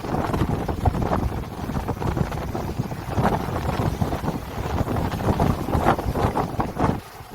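Strong wind blowing over the sea, gusting unevenly and buffeting the microphone with a low rumble; it eases briefly near the end.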